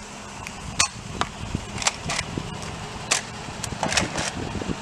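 Car rolling along with a low rumble, over which a toy Nerf blaster fires in a series of sharp pops and clicks, about eight in under five seconds.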